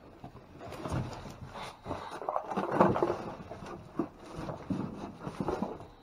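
Irregular rustling and knocking of packages and bags being handled and moved about.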